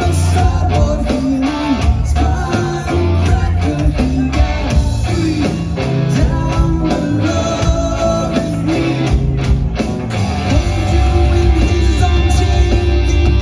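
Live rock band playing through a PA system: electric guitars, bass guitar and drum kit, with a lead singer.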